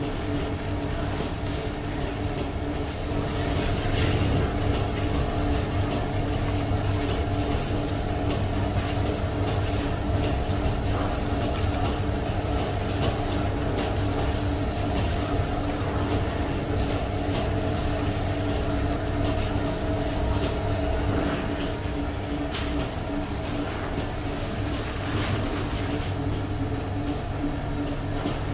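Steady hum and rumble of running machinery, with a few faint clicks.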